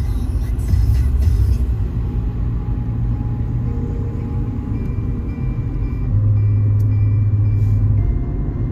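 Steady low rumble of a car driving on a city street, heard from inside the cabin.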